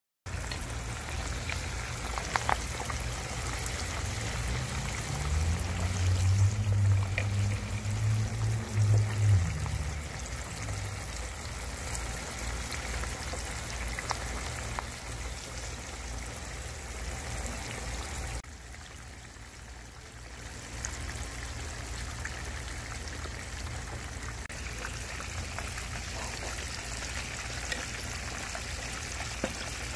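Whole red snapper deep-frying in a skillet of hot oil: steady sizzling hiss with scattered pops and crackles. A low hum swells and fades between about five and ten seconds in, and the sizzle drops away for a couple of seconds near twenty seconds in.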